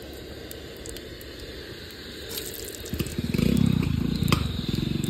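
Frying hiss from garlic dropped into hot oil. About three seconds in, an engine starts running with a rapid, even beat and becomes the loudest sound.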